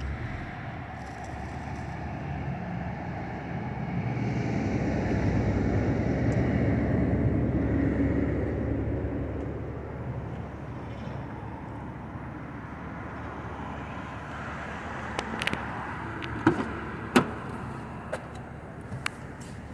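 BMW 128i's straight-six engine idling with a steady low hum, swelling for a few seconds in the middle. In the last few seconds there are a couple of sharp knocks and clicks as a car door is opened and shut.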